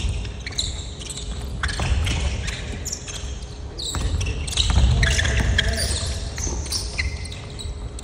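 Basketball game on a hardwood gym floor: the ball bouncing with a few sharp knocks, players' feet running and sneakers squeaking, and scattered voices, echoing in the hall.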